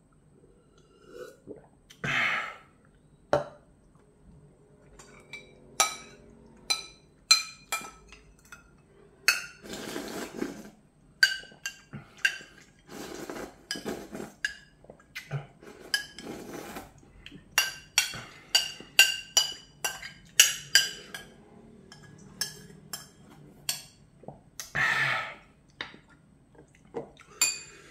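Metal spoon and chopsticks clinking again and again against ceramic bowls and a glass, each clink ringing briefly, with broth being slurped from a lifted bowl. A loud breathy exhale from the eater about two seconds in and again near the end.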